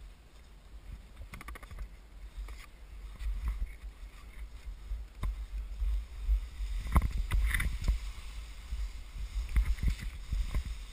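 Skis swishing and scraping through wet, slushy snow in turns, with a deep wind rumble on the microphone and scattered sharp knocks, the loudest from about seven seconds in.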